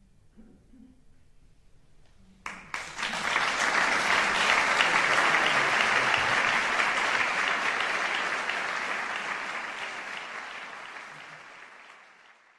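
Audience applauding. After a short hush, the clapping starts abruptly about two and a half seconds in, holds steady and dense, then fades out near the end.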